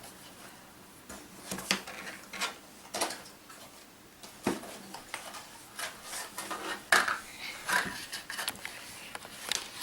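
A small camera box and its packaging being opened by hand: a string of scattered clicks, taps and light scrapes, with a sharper knock about seven seconds in.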